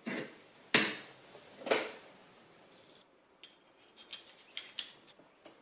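Metal rings of an M42-to-Tamron Adaptall-2 lens adapter being handled: three sharp metallic clinks in the first two seconds, then a run of small quick clicks as the rings are turned against each other.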